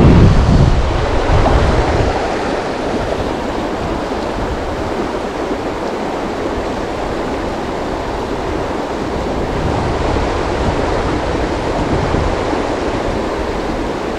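Kern River water rushing steadily. A low wind rumble on the microphone fades out about two seconds in.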